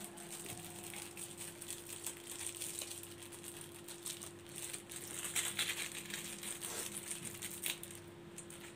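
Indomie seasoning sachets crinkling as they are torn open and squeezed out over bowls of noodles, with many small rustling crackles, busiest about five to six seconds in. A faint steady hum runs underneath.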